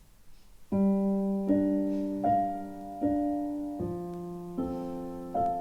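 Piano playing the slow introduction to a song: sustained chords, a new one struck about every three-quarters of a second, starting about a second in.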